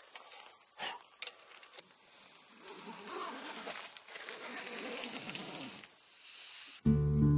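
A few light metallic clicks and knocks as a hanging lantern is handled, then a soft rustling hiss for a few seconds. Acoustic guitar music comes in near the end and is the loudest sound.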